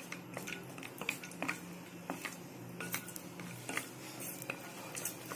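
Wooden spatula scraping and tapping against a nonstick kadai while stirring cashews roasting in ghee: irregular light clicks and scrapes, several a second, over a steady low hum.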